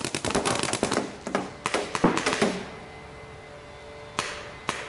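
Paintball markers firing rapid strings of shots for about two and a half seconds after the start of a round, then two single shots near the end.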